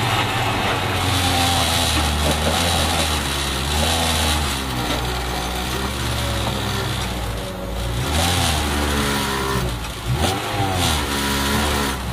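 Supercharged Lotus Exige track car's engine heard from inside the cabin under hard driving. The revs rise and fall again and again, with several quick swings up and down in pitch from about four seconds in, as it works through the gears between corners.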